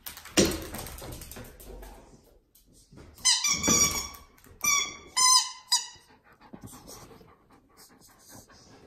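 A rubber squeaky toy squeaking about five times in quick succession as a border collie bites it, after a sudden thump and a second or so of scuffling about half a second in.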